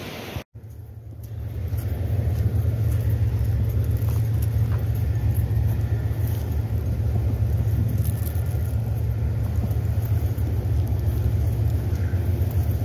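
Wind buffeting the microphone as a heavy, steady low rumble, building up about a second in and then holding, over the fainter rushing hiss of a fast, high-flowing river.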